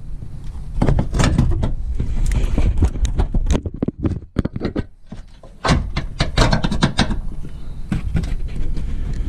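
Steel grill-guard mounting bracket clunking and scraping against the truck's frame as it is worked in from behind and turned into place. The knocks come in two busy clusters with a quieter stretch between them.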